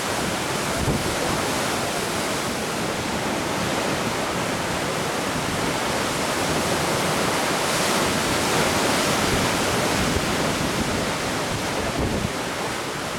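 Sea surf washing on the shore, a steady rushing, with wind buffeting the microphone.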